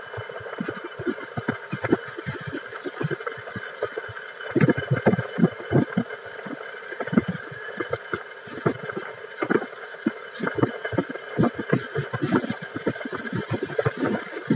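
Wind buffeting the microphone of a moving vehicle in irregular low thuds, several a second, over steady road and vehicle noise as it is ridden along.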